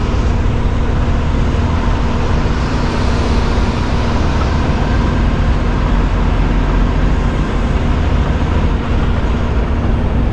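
Peterbilt 579 semi truck's diesel engine running steadily at low speed while the truck is manoeuvred through a tight turn: a constant low rumble with a steady hum.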